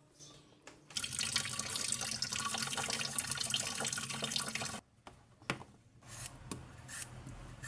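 Kitchen tap running into a sink for about four seconds, starting about a second in and cutting off abruptly; a few light knocks follow near the end.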